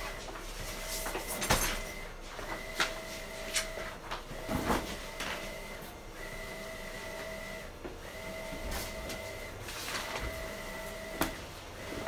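Wide-format inkjet printer running, a steady whine from its print-head carriage that breaks off and resumes every second or two. Over it, short rustles and crackles of a large vinyl wrap sheet and its backing paper being handled, with a few light clicks.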